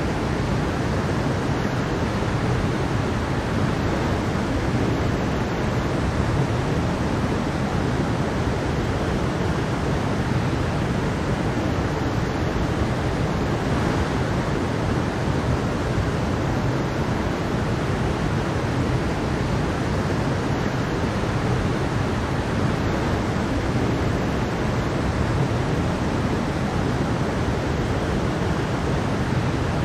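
Mountain stream flowing over rocks and a small waterfall: a steady, even rush of water.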